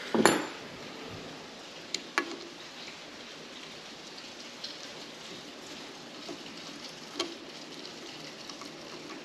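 Small metal handling sounds from test-threading a new brass idle jet into a Mikuni carburetor: a scrape just after the start, then two sharp clicks about two seconds in and a lighter one later, over a steady faint hiss.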